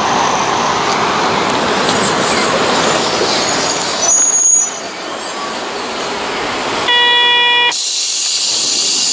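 Train running noise, then a short steady horn-like toot about seven seconds in, followed at once by a sharp hiss of air.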